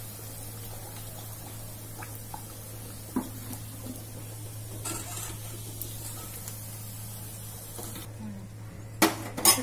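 Batata vadas deep-frying in hot oil in a steel kadhai, a steady soft sizzle, with a few light clinks of a metal spoon against the pan and two louder clanks near the end.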